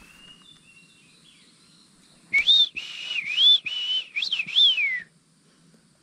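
A person whistling a short phrase of about half a dozen rising and falling notes, imitating the whistled call of an unidentified rainforest bird. The phrase starts about two seconds in and lasts about three seconds, and fainter, thinner high whistles come before it.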